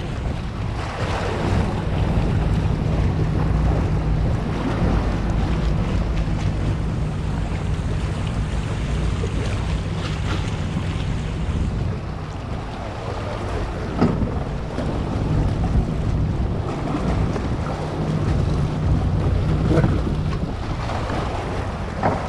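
Yamaha 150 outboard motor running with a steady low hum, strongest in the first few seconds and again near the end. Water churns and splashes along the hull, and wind buffets the microphone.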